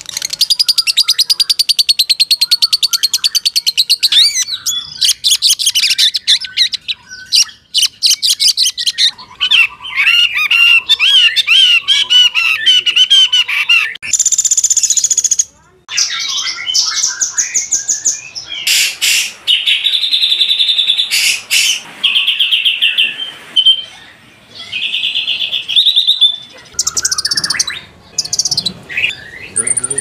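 Caged songbirds singing one after another, each song cutting off abruptly where the next begins. Loud, rapid repeated chirps give way to warbling phrases and then to short repeated whistled notes.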